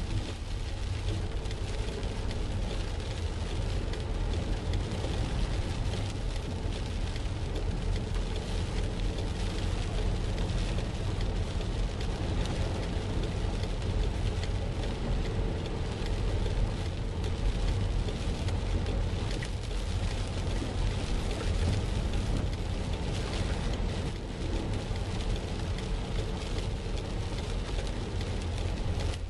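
Car driving through floodwater in rain, heard from inside the cabin: a steady low rumble of the car with the hiss and splash of water.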